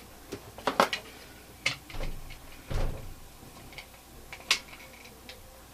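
Scattered sharp clicks and two dull knocks from a Kel-Tec Sub2000 Gen 2 carbine being handled and dry-fired as its trigger pull is measured with a trigger pull gauge.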